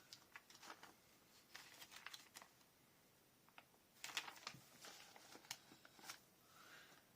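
Faint rustling and clicking of paper and small embellishments being handled and placed on a scrapbook layout, in three short clusters of light taps and crinkles.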